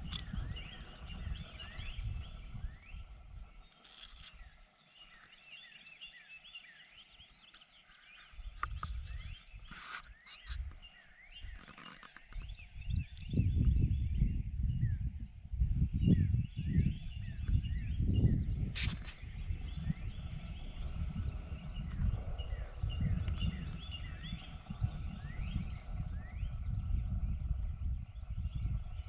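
A night chorus of frogs, many short chirping calls overlapping without pause, over a steady high whine. A low rumble swells through the middle, and there are two sharp clicks, about ten and nineteen seconds in.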